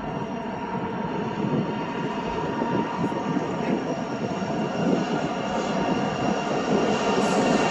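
Norfolk Southern freight train's diesel locomotives approaching, a steady engine drone that grows gradually louder.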